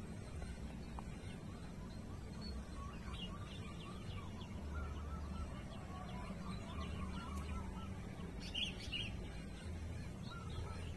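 Small birds calling: a string of short, repeated chirps, with a few higher, sharper chirps about three seconds in and again near nine seconds, over a low steady rumble.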